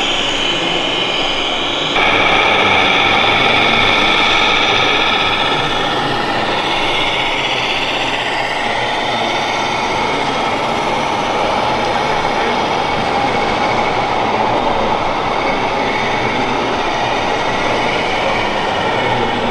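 Radio-controlled scale model trucks driving, a steady mechanical whine and hum. The sound changes suddenly and gets louder about two seconds in.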